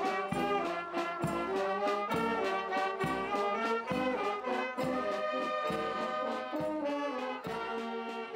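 Brass music: several brass instruments playing a slow tune in chords, the notes changing about once a second.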